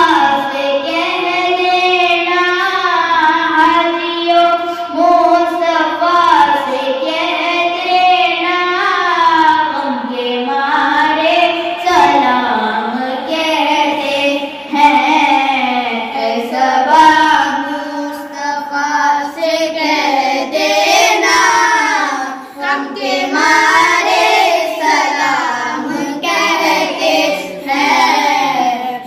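A boy's solo voice singing an Urdu salam (devotional Islamic song) into a handheld microphone, unaccompanied, with long held notes that waver and glide between pitches.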